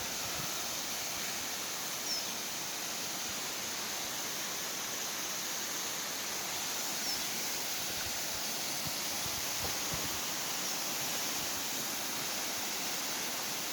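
Waterfall rushing: a steady, even roar of falling water, with a few faint, brief high chirps over it.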